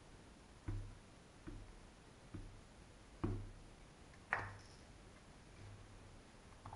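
Small ink pad dabbed onto a clear silicone stamp on a craft mat, then set down: a handful of soft taps about a second apart, the last two the loudest.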